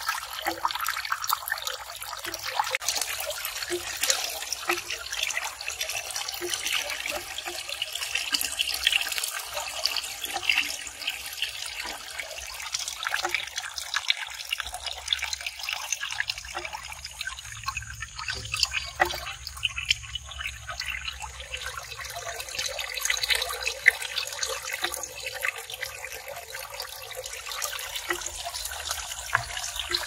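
A thin stream of water trickling from a bamboo spout and splashing into a small pond, with a steady patter of drips.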